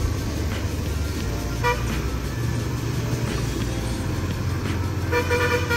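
Steady motorcycle engine and road noise while riding in traffic. A vehicle horn toots briefly about a second and a half in, and again near the end.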